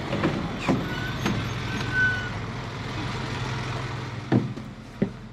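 Isuzu city bus engine idling at a stop, a steady low hum, with a few sharp knocks and clunks as passengers step aboard, and a brief high-pitched tone about two seconds in.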